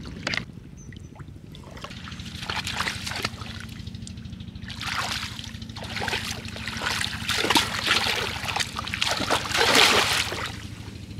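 Shallow muddy water splashing and sloshing as hands thrash and scoop through it to grab a fish. The splashes come in irregular bursts that grow, the loudest near the end. A steady low hum runs underneath.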